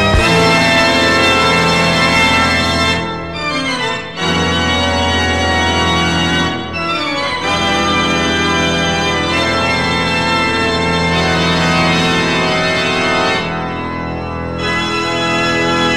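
Organ music playing long held chords, with brief breaks in the chords about three seconds in and again near the end.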